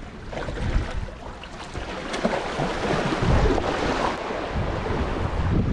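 Sea waves washing and splashing in among concrete tetrapod blocks, swelling louder about three seconds in, with wind buffeting the microphone.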